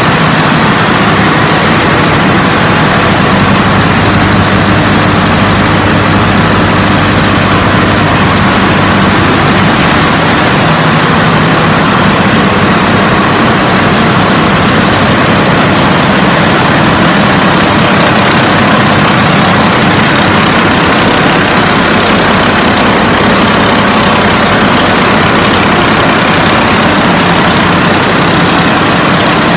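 Caterpillar diesel engines running in a ship's engine room: a loud, steady drone with a low hum underneath, filling the enclosed space.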